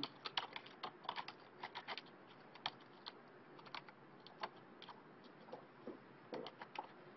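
Faint typing on a computer keyboard: quick, irregular keystroke clicks for the first two seconds or so, then sparser ones.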